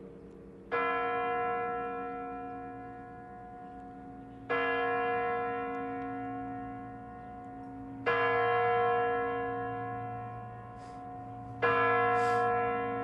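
A large bell tolling slowly during a minute of silence for the fallen: four strikes about three and a half seconds apart, each ringing on and slowly fading before the next.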